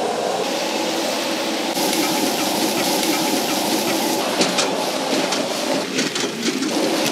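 Wok stir-frying over a gas burner: steady sizzling and roar, with the metal ladle scraping and clanking against the wok in the second half. The sound changes abruptly a few times as the dish being fried changes.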